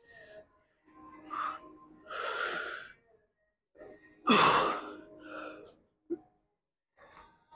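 A man's forceful, strained breathing on the pulls of a heavy seated cable row: hard exhales and gasps, the two loudest about two seconds apart.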